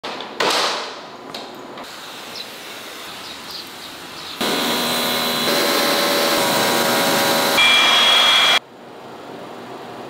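A string of short, abruptly cut cleaning sounds from a ceiling cassette air conditioner. A sharp clack comes as the front grille panel is handled. Then comes the loud hiss of a high-pressure water spray washing the unit's parts, with steady whining tones, which drops suddenly to a softer hiss near the end.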